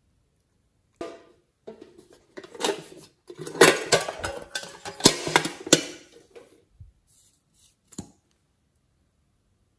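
Thin metal tin box being handled: a run of taps, knocks and rattles of tin, densest a little past the middle, then a single click near the end.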